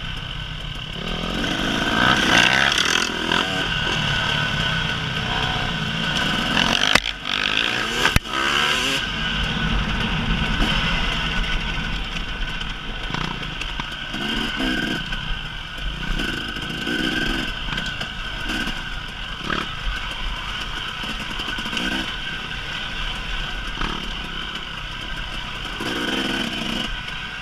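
2018 KTM 300EXC single-cylinder two-stroke dirt bike engine, heard from on board, revving up and down again and again while riding. Sharp knocks come about seven and eight seconds in.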